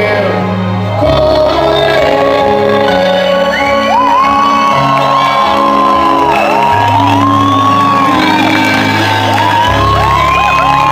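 Live band music led by a keyboard, playing sustained chords. From about four seconds in, the audience shouts, whoops and sings along over it.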